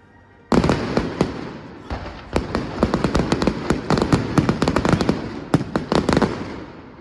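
Fireworks bursting: a sudden loud bang about half a second in, then a rapid volley of sharp cracks and bangs that fades away near the end.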